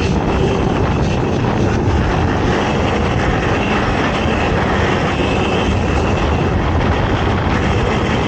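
ATV engine running hard at race pace, a loud steady drone with no let-up.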